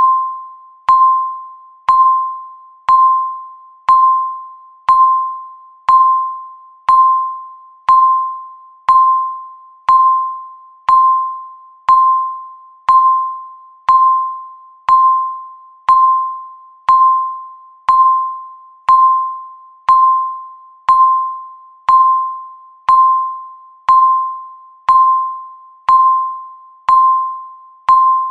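Countdown timer's electronic tick, one per second: each a short, clear ping that starts sharply and dies away within about half a second, at the same pitch every time.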